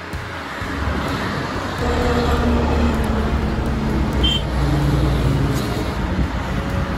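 Road traffic: a motor vehicle's engine running nearby, growing louder about a second in, loudest through the middle and easing off near the end, as if passing on the road.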